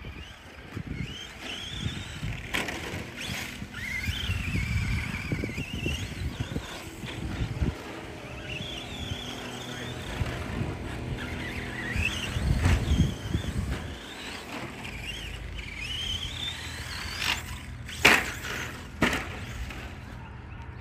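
Electric RC cars driving, their motors whining in a pitch that rises and falls with the throttle over a low rumble. Two sharp knocks come about 18 and 19 seconds in.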